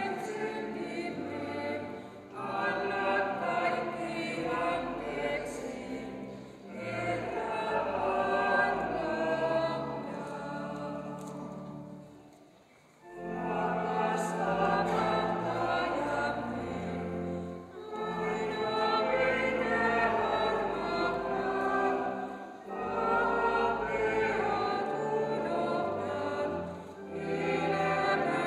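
A choir singing in church, phrase by phrase over steady held low accompanying notes, with a short break about halfway through.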